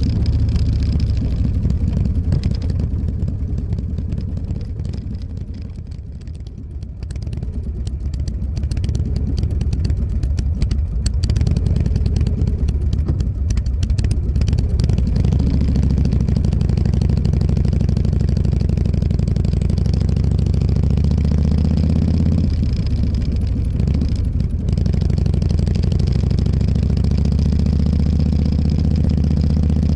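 Motorcycle engine running while riding. It eases off a few seconds in, then pulls steadily again, with a brief drop about 24 seconds in.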